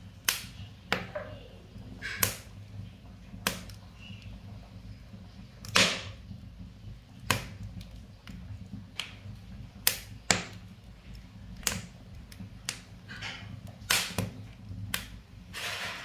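Wood fire burning in the firebox of a brick wood-fired cookstove, crackling with irregular sharp pops, roughly one or two a second, some much louder than others, over a low steady background.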